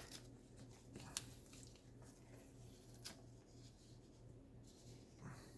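Near silence: a few faint clicks and rustles of Lorcana trading cards being handled, over a low steady hum.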